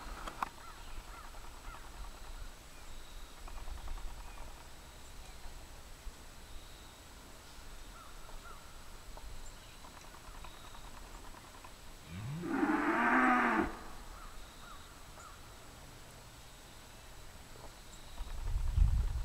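A cow moos once, about two-thirds of the way through. The call lasts about a second and a half, starting low, rising in pitch and then holding. A low rumble comes in near the end.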